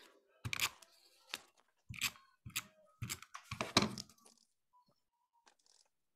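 Handheld adhesive tape runner drawn along paper strips in about six short strokes, the last one about four seconds in.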